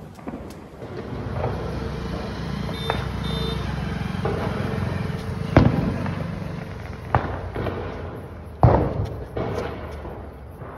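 Diwali firecrackers going off: a run of sharp, separate bangs in the second half, the loudest near the end, over a low rumbling background.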